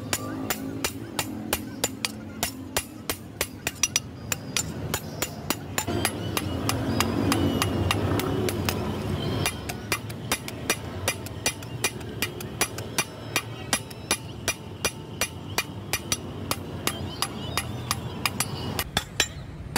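Hand hammer striking a hot leaf-spring steel billhook blade on an anvil, steady ringing blows about two to three a second as the blade is forged to shape. A louder low noise swells under the blows in the middle.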